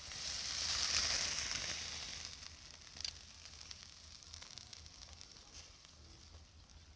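Chicken hearts in a wire grill basket sizzling over hot charcoal as the basket is turned, the hiss swelling in the first second and then fading. A few light clicks, the clearest about three seconds in.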